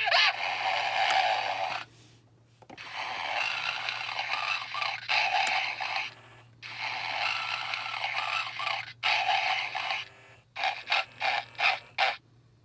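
Homer Simpson Santa figure from 2004 playing recorded snoring through its small speaker: three long snores of two to three seconds each, then a quicker run of short snorts near the end.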